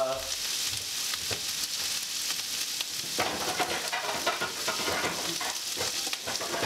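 Tempeh cubes and asparagus frying in hot peanut oil and soy sauce in a pan: a steady sizzle with scattered crackles.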